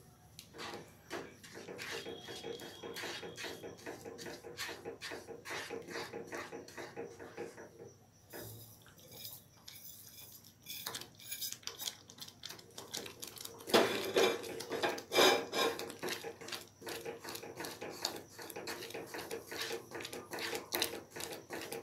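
Wooden spatula stirring semolina into water and vegetables in a non-stick kadhai, scraping and knocking against the pan in quick repeated strokes. The stirring pauses briefly around eight to ten seconds in and is louder from about fourteen seconds on, as the mixture thickens.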